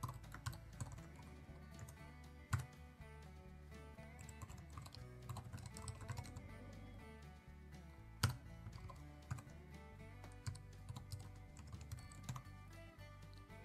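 Computer keyboard typing: irregular, unhurried keystrokes with two louder key strikes, about two and a half and eight seconds in, over quiet background music.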